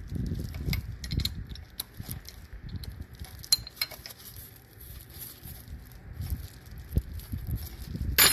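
Metal tools and parts clinking and rattling as they are handled, over low rumbling handling noise, with a sharp loud clink near the end.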